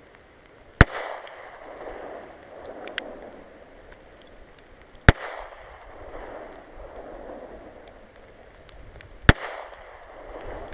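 Three handgun shots fired one-handed, about four seconds apart, each followed by a long rolling echo across the range.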